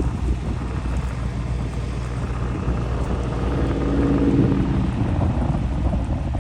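A vehicle engine running steadily, with a brief higher tone swelling in about halfway through.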